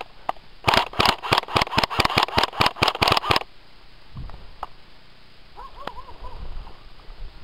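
Airsoft gun firing a rapid string of shots, about five or six a second, for nearly three seconds, then stopping.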